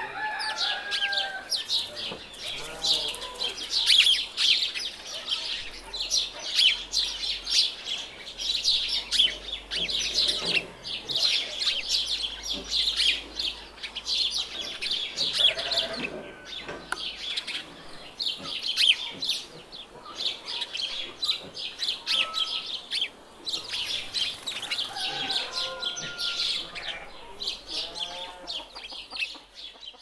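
Farm ambience: a dense, continuous chorus of small birds chirping rapidly, with chickens clucking now and then.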